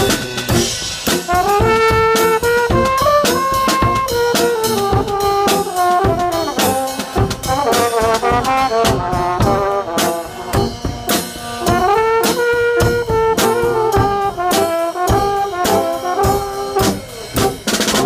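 Brass band playing live: French horns, trumpets and other brass carry a melody in harmony over a steady bass drum and cymbal beat.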